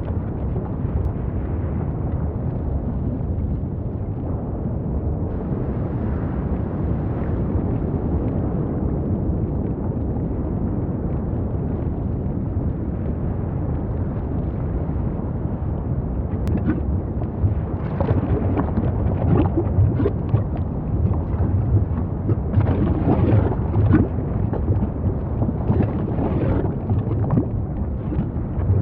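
Volcanic eruption sound effect: a deep, continuous rumble, with irregular crackling bursts joining it from about halfway through.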